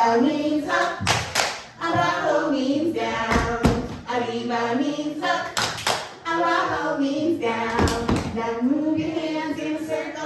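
A woman's voice singing a chant in phrases, with group hand claps falling in pairs about every two seconds.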